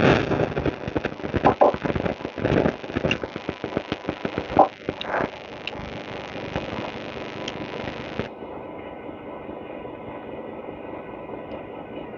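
Clicks and knocks of metal starter parts being handled, a dense run of them in the first five seconds, over a steady hum.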